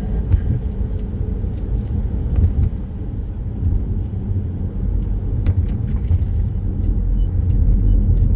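A car driving on a wet road, heard from inside the cabin: a steady low rumble of engine and tyres, with a few faint clicks.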